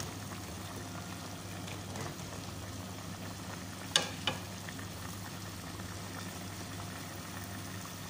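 Chicken pieces simmering in water in an aluminium pot, with a steady bubbling hiss. Two sharp knocks come about four seconds in, a fraction of a second apart.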